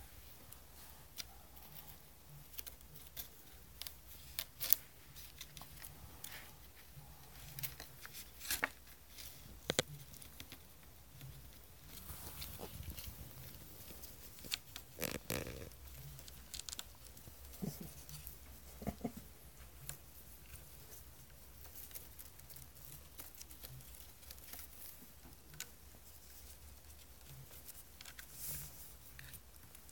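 Kitten clawing and chewing at a corrugated cardboard cat scratcher: faint, scattered scratches and clicks of claws and teeth on cardboard.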